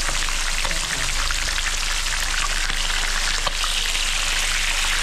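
Mojarras (tilapia) frying in hot oil: a steady crackling sizzle with a few sharper pops.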